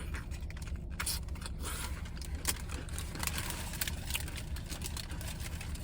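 Crunchy chewing of a pickle, a few sharp crunches scattered through, over the steady low hum of a car cabin with the engine running.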